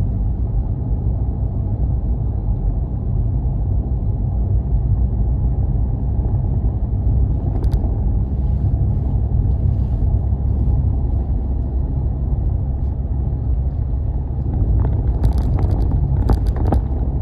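Steady low rumble of a car driving on an unpaved dirt road, heard from inside the cabin: engine and tyre noise. A few sharp clicks or rattles come about eight seconds in and again in a cluster near the end.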